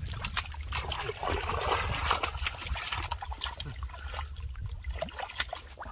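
Hands groping and splashing in shallow muddy water, with many short splashes and a denser stretch of churning about a second in, and water trickling and dripping off the hands as they lift out.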